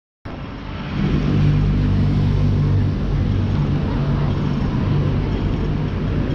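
Road traffic in a busy city street: the steady low hum and rumble of vehicle engines running close by, cutting in abruptly just after the start.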